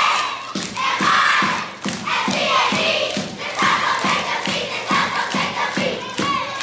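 A crowd of children shouting a rhythmic cheer together, with a steady beat of about two knocks a second.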